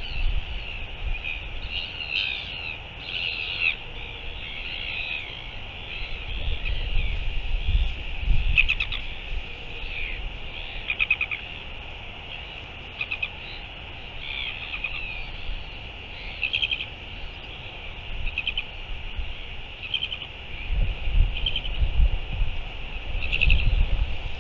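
Small birds chirping and giving short fast trills again and again, with gusts of wind rumbling on the microphone, strongest near the middle and near the end.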